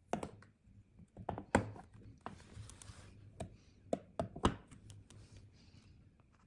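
A plastic solar garden light being handled against a galvanized metal raised bed: a run of irregular clicks and knocks, the loudest about a second and a half in and again near four and a half seconds, with a short scraping rustle between two and three seconds.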